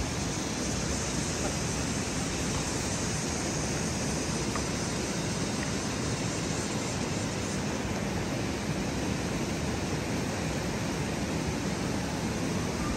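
Steady rush of a flowing river, an even hiss of running water that holds constant without a break.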